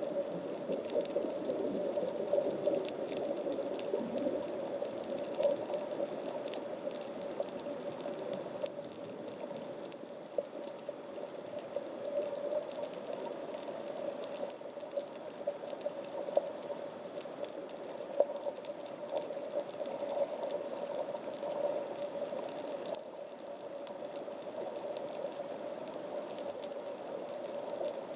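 Underwater reef ambience picked up through a 360° camera's waterproof housing at about 15 m depth. A steady muffled hiss with a low steady hum runs throughout, dotted with scattered faint crackling clicks.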